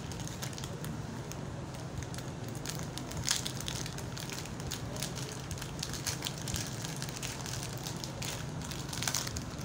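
Thin plastic packaging, a courier mailer bag and a small plastic pouch, crinkling and crackling irregularly as it is handled and unwrapped, with a sharper crackle about three seconds in and another near the end. A steady low hum runs underneath.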